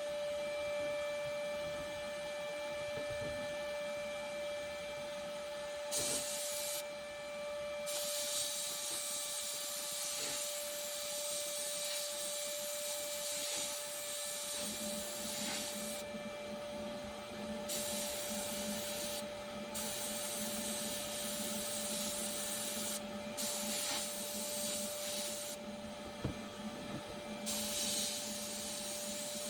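A machine running with a steady hum, and a hissing that switches on and off in repeated spells of a few seconds each.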